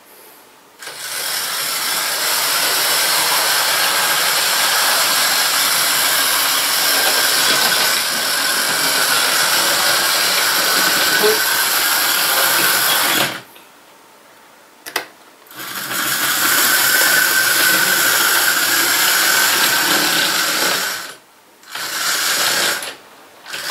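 Electric motor of a 00 gauge model steam locomotive running with a steady whir and high whine as it hauls coaches round the track. It cuts out suddenly a little past halfway, blips once, runs on, then stops and starts again briefly near the end.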